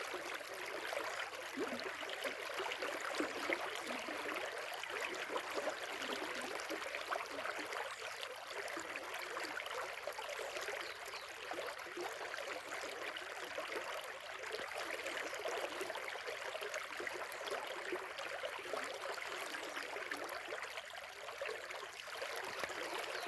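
Shallow river or stream running over stones, a steady babbling and gurgling rush of water.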